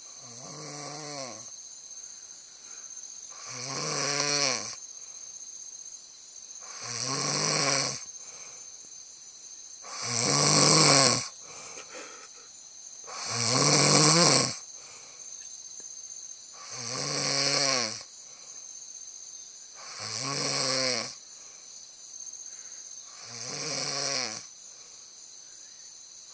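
Someone asleep, snoring steadily: about eight drawn-out snores, one every three seconds or so, each a second or more long. A faint steady high whine runs underneath.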